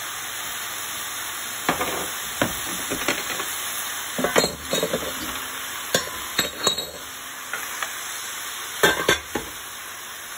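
Swiss chard leaves frying in a hot nonstick pan with a steady sizzle. A utensil stirs and tosses them in short scraping, clinking strokes, loudest a little past the middle and again near the end.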